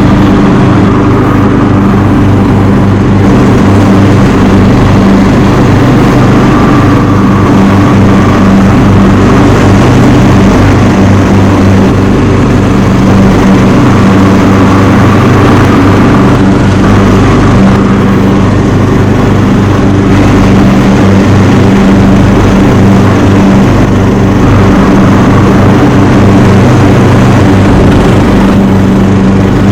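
Craftsman T210 18-HP riding lawn mower's engine running steadily and loud, close to the microphone.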